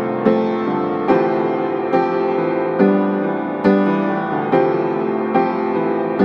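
Background piano music: slow, evenly spaced chords, a little more than one a second, each ringing out before the next.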